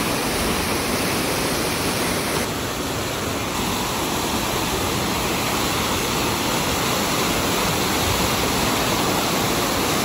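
Small mountain waterfall rushing steadily over rocks, a loud, even roar of falling water close to the microphone.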